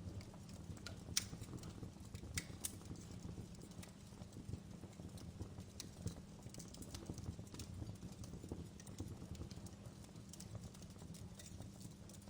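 Wood fire crackling in a fireplace: a low steady rumble of the flames with frequent irregular sharp pops and snaps, the sharpest about a second in.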